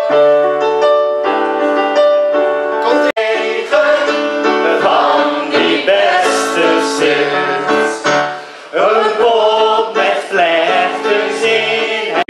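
Electronic keyboard playing held chords. About three seconds in it cuts abruptly to a group of voices singing a song over keyboard accompaniment, with another brief break after about eight seconds.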